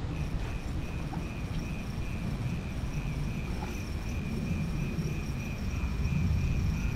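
A steady, high-pitched insect trill over a low rumble.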